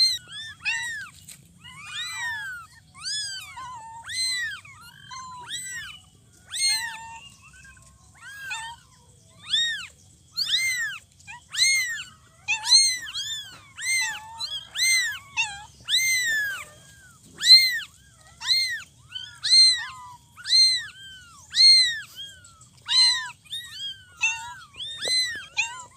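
A cat meowing over and over: short, high-pitched meows that rise and fall, about one a second, some of them overlapping.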